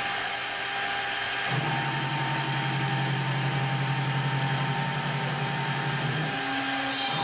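CNC router running: the air-cooled spindle spins with its fan rushing and a steady high whine. The Nema 34 stepper motors add a steady low hum as the gantry moves; the hum comes in about a second and a half in and changes pitch near the end as the move changes.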